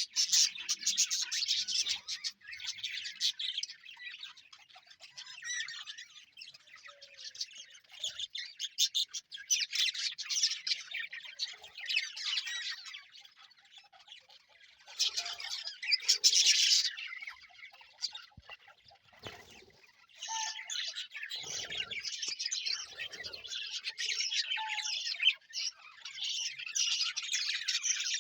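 A flock of budgerigars chirping and chattering in overlapping bursts, with short lulls between them; the loudest burst comes about halfway through.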